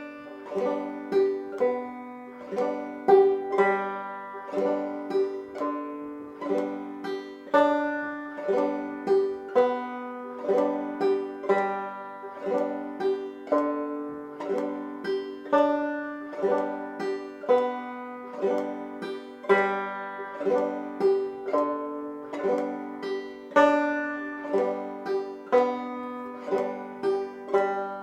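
Five-string banjo played clawhammer style in a steady frailing rhythm, on open strings 1 through 4 with no chords fretted.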